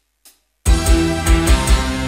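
A dangdut band's music starts abruptly less than a second in, with heavy bass, drums and regular bright cymbal strokes. Before that there are only a few faint clicks.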